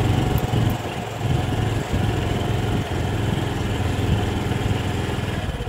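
Small motorcycle engine running steadily under light throttle as it climbs a bridge ramp.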